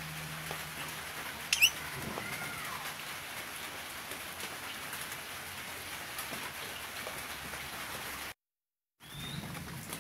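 Blue-rumped parrot giving a sharp, high-pitched call about a second and a half in, with a fainter arching call just after and another short high call near the end, over a steady hiss of rain. The sound drops out briefly just before the last call.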